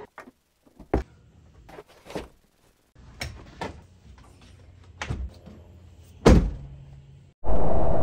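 A string of separate knocks and thuds as gear is handled and loaded into the Ford Bronco's cargo area, with a heavy door-like thunk about six seconds in. Then, near the end, steady road and wind noise inside the moving Bronco's cabin cuts in.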